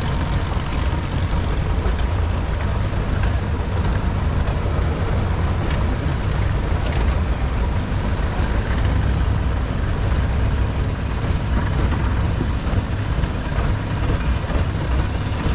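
Long-tail boat engine running steadily underway, a loud low drone heard from on board, with the hiss of water along the hull.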